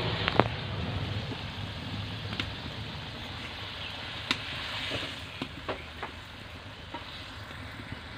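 Fish curry with potatoes sizzling on the boil in a metal kadai, with a metal spatula knocking and scraping against the pan several times.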